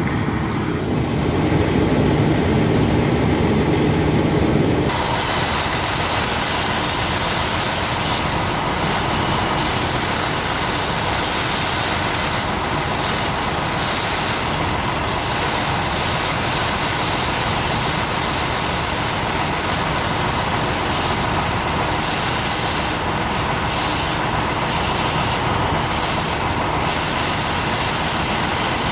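Compressed air hissing steadily from a leak under the air solenoid on a truck's transmission, sharply brighter and louder about five seconds in.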